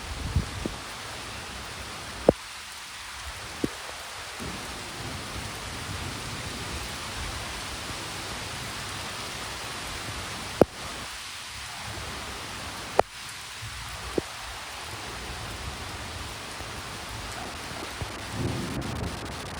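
Steady rain falling, with low thunder rumbles near the start and again near the end. A few sharp isolated clicks stand out over the rain, the loudest events.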